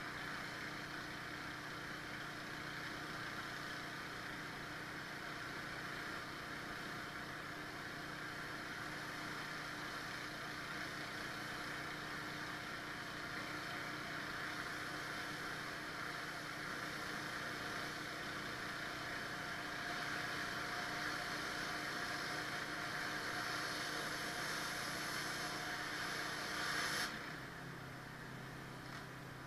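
Pressure washer engine running steadily under the hiss of high-pressure water from a surface cleaner on concrete. Near the end the spray cuts off suddenly, as when the trigger is released, and the engine runs on alone with a slightly changed note.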